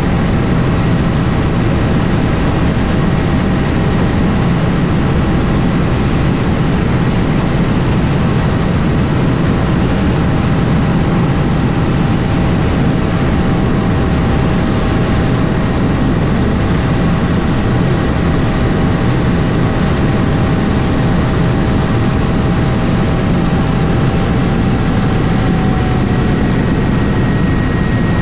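Helicopter turbine and rotor running steadily: a loud, even rush heavy in the low end, with a thin, steady high whine on top.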